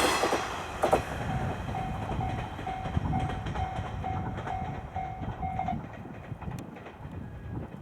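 Level-crossing warning bell ringing about twice a second while a passing diesel railcar fades away, its wheels clattering on the rail joints. The bell stops about six seconds in, once the train has cleared the crossing.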